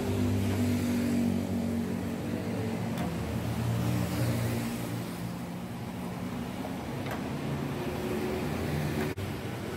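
A motor vehicle engine running close by, a steady low drone that rises and falls slightly in pitch, over a hiss of chicken pieces frying in hot oil.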